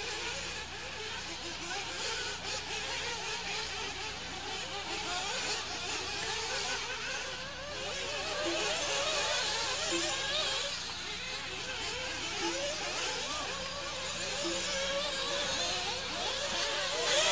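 Several nitro RC buggy engines buzzing at a high pitch, their pitches rising and falling as they rev and ease off around the track.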